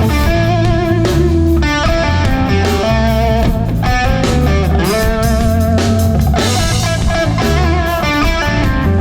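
A live band playing loud and steady with no vocals: an electric guitar line with bent, held notes over bass guitar and drums.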